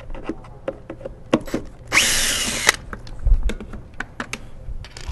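Cordless drill running for just under a second, backing a screw out of the vacuum's plastic head, its pitch rising as it spins up. Short clicks and knocks of the plastic housing being handled come before and after it.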